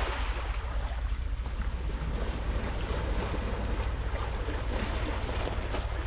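Small waves washing onto a pebble beach, with wind rumbling on the microphone.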